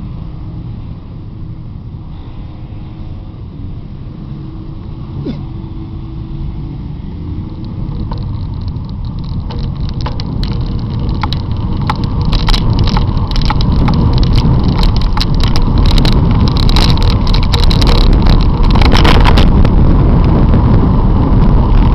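Wind buffeting the microphone and road rumble from a bicycle riding in traffic, growing steadily louder, with a rattle of sharp clicks from about ten seconds in.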